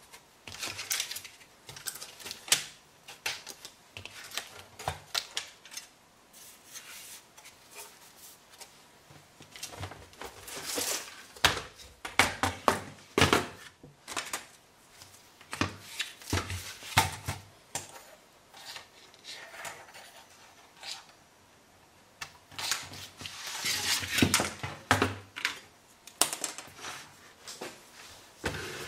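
Irregular clicks, clatters and scrapes of an LG 22LD310 LCD TV being taken apart by hand: its sheet-metal chassis is lifted and shifted and its cable connectors are pulled loose. The busiest bursts of clatter come near the middle and again near the end.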